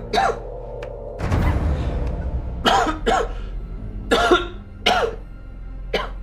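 A person coughing in several short, harsh fits over sustained background music.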